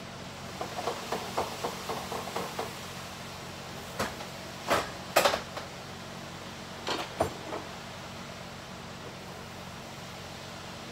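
Kitchen utensils and cookware handled at the counter: a quick run of light taps for the first few seconds, then a few sharp, loud clicks and knocks around the middle and a few softer ones shortly after, over a steady low hum.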